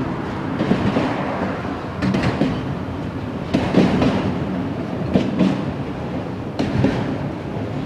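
Loaded autorack freight cars rolling past with a steady rumble of steel wheels on rail. Paired clacks come as each car's wheel trucks pass, about every second and a half.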